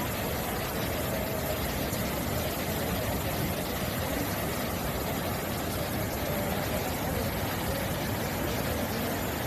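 Muddy flash-flood torrent rushing past: a steady, even rush of water noise with no breaks.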